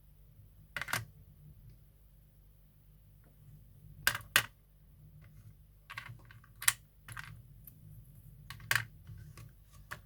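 Small hard craft tools being handled and set down on a hard work surface: a few sharp, irregular clicks and taps.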